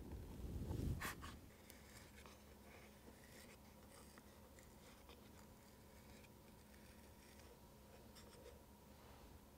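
Faint scraping and light ticks of a small metal spatula smoothing cream around a miniature cake on a small wooden turntable, with a low thump and click about a second in.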